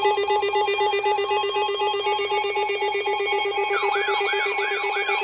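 Electronic emergency alert alarm sounding as a harsh, rapidly pulsing buzz. About four seconds in, a second alarm tone joins, warbling up and down about three times a second.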